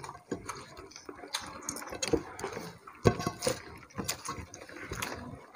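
Eating rice and fish curry by hand from plates: wet mixing and chewing noises, with irregular small clicks and taps against the plates.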